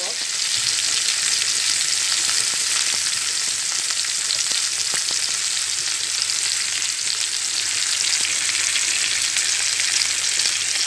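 Chopped onions sizzling in hot oil in a frying pan: a steady crackling hiss.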